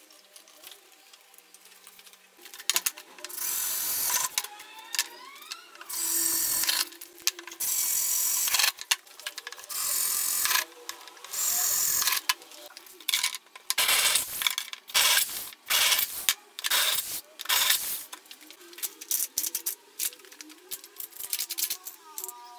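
Power drill boring into an aluminum motorcycle rear fender in a series of short bursts, each one to two seconds long, with the motor's whine rising as it spins up a few seconds in. Shorter scattered clicks follow near the end.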